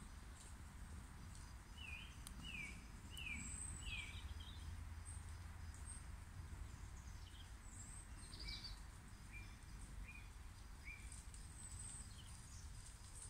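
Wild birds calling quietly: a run of four short falling notes a couple of seconds in, then scattered high chirps and short calls, over a faint low rumble.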